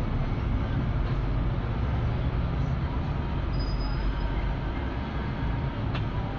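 Steady driving noise of a car on the road: a continuous low rumble of engine and tyres with a lighter hiss above it.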